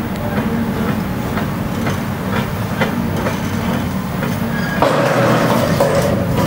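Hydraulic excavator running steadily while it carries a steel I-beam, with a run of metal clicks about two or three a second. About five seconds in, a louder harsh noise rises over the engine.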